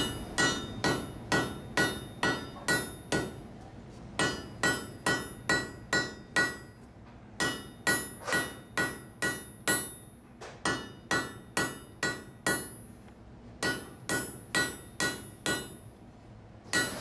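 Hand hammer striking red-hot steel on an anvil: steady blows a little over two a second, in runs broken by short pauses. Each blow has a bright metallic ring.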